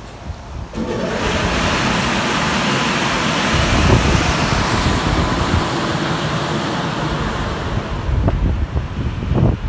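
Drying blowers of a WashTec SoftWash rollover car wash start up about a second in: a loud, steady rush of air that keeps going, its hiss easing slightly near the end.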